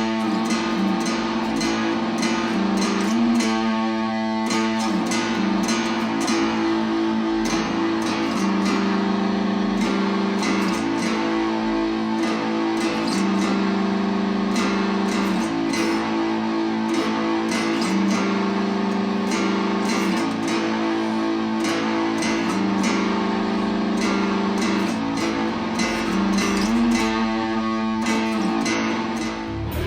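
Background music: guitar playing sustained, steady chords.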